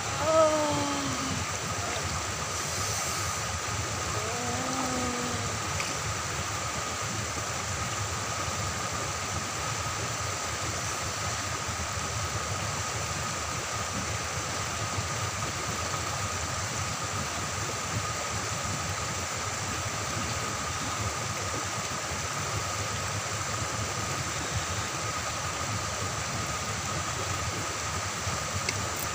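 Steady rush of river water pouring over small weir waterfalls, with a thin steady high tone above it. A man's short pitched cry near the start, and fainter gliding cries about four seconds in.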